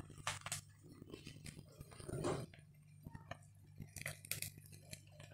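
Scattered light clinks and knocks of a metal plate and wooden spatula as fried fish pieces are tipped into a pan of half-fried brinjal, with a somewhat louder knock about two seconds in. A faint steady low hum runs underneath.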